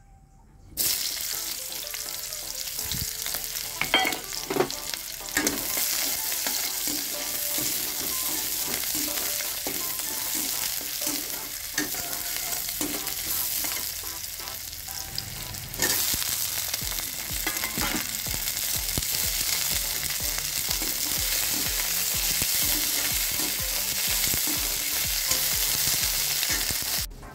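Oil sizzling in an iron wok as onion slices and silkworm pupae dry-fry, stirred with a slotted metal spatula that knocks and scrapes against the pan. The sizzling starts suddenly about a second in, with a few sharp knocks of the spatula around four to five seconds in, and it gets louder from about halfway.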